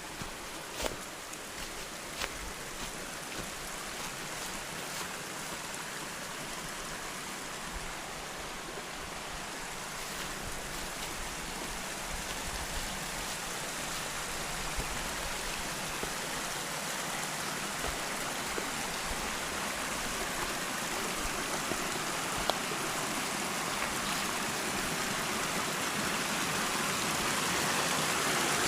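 Running water of a brook or stream, a steady rushing that grows gradually louder as it is approached.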